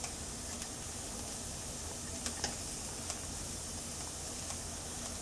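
Faint, steady sizzle of chopped onion frying in a pan on medium heat, with a few light clicks here and there.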